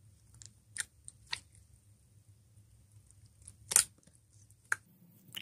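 Fingers squishing and poking thick white slime in a plastic tub, giving a few scattered sticky clicks and pops, the loudest about four seconds in.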